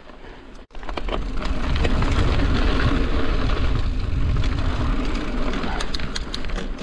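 Cross-country mountain bike riding over dirt singletrack: wind rumbling on the handlebar camera's microphone and tyres rolling over the dirt, with scattered clicks and rattles from the bike. It cuts out for an instant just before a second in, then runs loud and steady.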